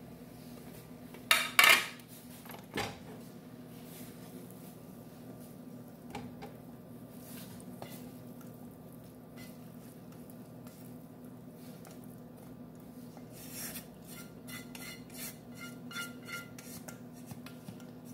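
Kitchenware clattering as a skillet of food is turned out onto a plate: two sharp knocks about a second and a half in and a smaller one near three seconds, then, in the last few seconds, a run of light scrapes and taps of a spatula against the nonstick skillet and the plate.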